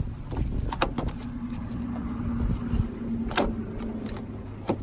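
Scissors snipping through a small pinfish to cut it up for bait: a few sharp crunching snips, one about a second in and several close together near the end, over a steady low rumble with a faint droning tone.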